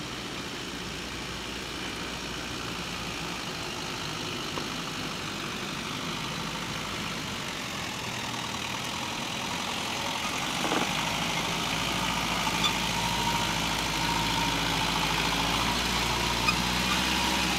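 Off-road 4x4's engine running at low, steady revs as it crawls over rock, growing louder as it comes closer, with a few faint knocks.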